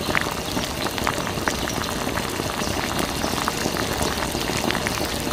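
A thin stream of water from a small pump's tube splashing and trickling onto a mud-covered toy tractor and into a shallow puddle, with many small drips and patters.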